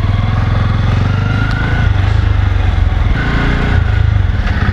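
Bajaj Pulsar N250's 250 cc liquid-cooled single-cylinder engine running under way in first gear, heard from the rider's seat as a rapid, even exhaust beat.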